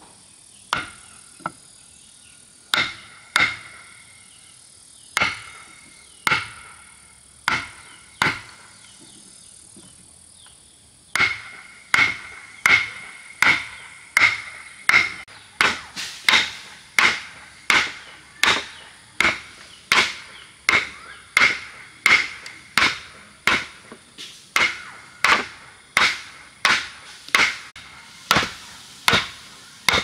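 Repeated blows of a hand tool, chopping or hammering, each blow with a short ringing tone. A few widely spaced strikes come first, then from about a third of the way in a steady run of about one and a half strikes a second.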